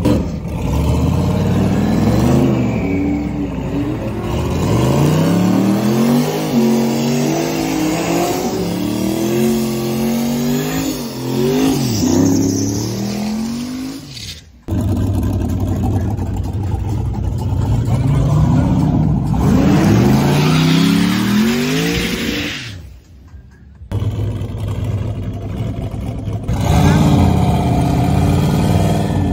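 Race-built GMC pickup's engine revving hard over and over, its pitch climbing and falling in repeated sweeps, as the truck does a burnout at the start line of a drag race. The sound cuts off briefly twice.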